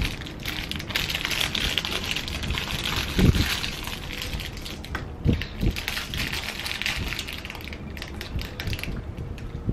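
Crinkly plastic snack-bar wrapper being pulled open and crumpled in gloved hands, a crackling that keeps starting and stopping, with a few dull handling knocks.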